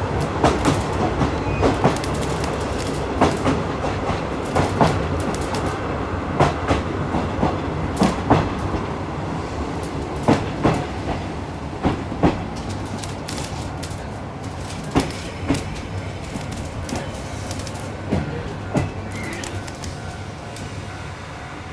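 Wheels of a 50-series passenger coach, heard from inside the coach, clicking over rail joints in close pairs over a steady low running rumble. The clicks thin out and the sound grows quieter as the train slows alongside a station platform.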